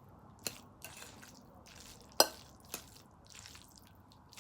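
Close-up mouth and chewing sounds of someone eating spaghetti: soft wet chewing with a few sharp mouth clicks, the loudest about two seconds in.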